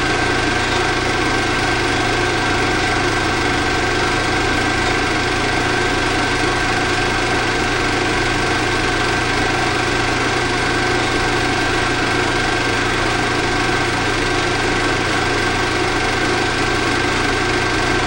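16mm film projector running: a steady mechanical whir with a constant high whine over a low hum.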